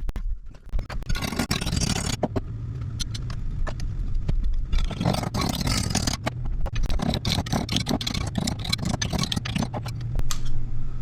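Freshly cut metal repair piece being straightened: many irregular sharp metal knocks and some scraping, over a steady low mechanical hum.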